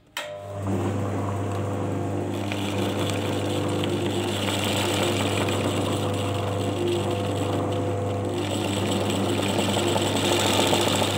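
Sewing machine starting up and running steadily, a continuous motor hum, as it stitches thread around a small mirror piece to fix it onto the fabric.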